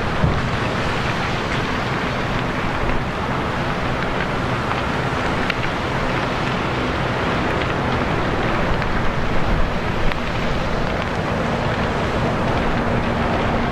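A large warehouse fire burning: a steady rushing noise with a few faint pops, and a low engine hum underneath that shows more plainly near the end.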